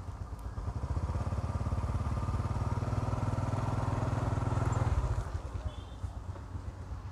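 A small engine running close by with a rapid, even firing pulse, swelling from about half a second in and falling away around five seconds in, like a machine passing.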